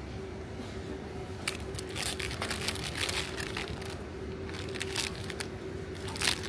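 Supermarket background with a steady low hum. Starting about a second and a half in, there is a spell of crinkling and clicking, with a few more clicks near the end.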